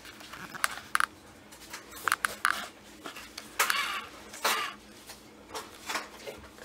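Handling noise: scattered light clicks and short rustles as a camera and its strap are gripped and moved.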